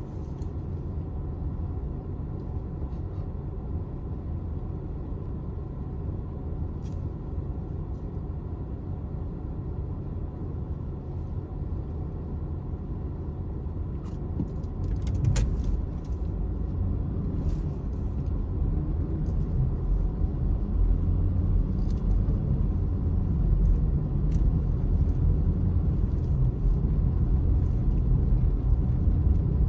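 Steady low rumble of a car's engine and tyres heard from inside the cabin while driving on a snow-covered road, growing louder about halfway through, with a few faint clicks.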